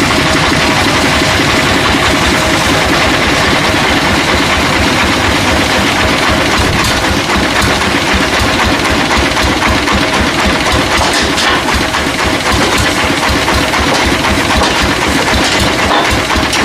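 Engine running steadily with a fast, even firing pulse and a steady whine above it.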